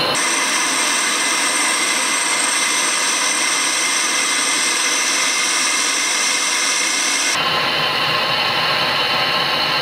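Gas blowtorch flame running with a steady hiss as it heats a titanium bolt to red heat. The sound changes abruptly about seven seconds in.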